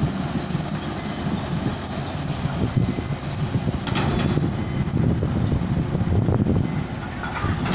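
Busy port noise: a steady low mechanical rumble, with a sharp metallic clank about four seconds in and another near the end.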